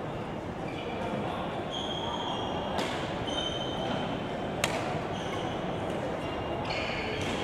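Badminton rackets hitting a shuttlecock twice, about two seconds apart, the second hit sharper and louder, with court shoes squeaking on the floor between shots over a steady murmur of spectators.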